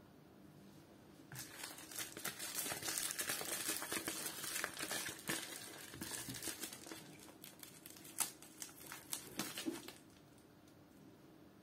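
Plastic courier mailer bag crinkling and rustling as it is handled, dense for several seconds, then a few sharper crackles before it stops.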